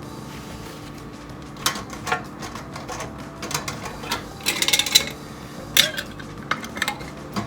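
Metal canning lid set onto a glass jar and its screw band twisted on finger tight: a series of light metallic clinks and scrapes, with a quick rattle of clicks about halfway through.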